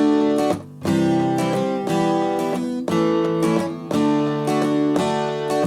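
Acoustic guitar strummed alone, with no singing: an instrumental interlude that moves through the chord sequence G, D, C, E minor, A, D, one new chord about every second.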